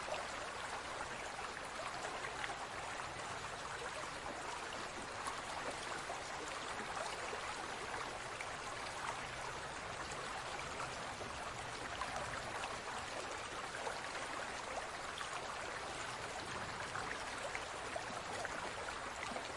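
Aquarium water trickling and bubbling steadily, a continuous hiss of moving water with many small scattered droplet and bubble pops.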